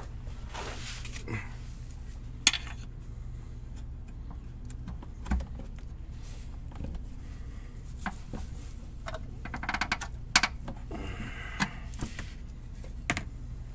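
Scattered metallic clicks, taps and scrapes of hand tools working against the car's oil pan and underbody, with a short run of rapid clicks about ten seconds in, over a low steady hum.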